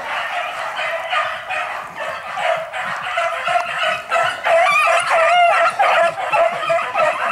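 A pack of hare hounds baying together on a hare's scent trail, many voices overlapping, louder from about halfway through as the pack comes closer.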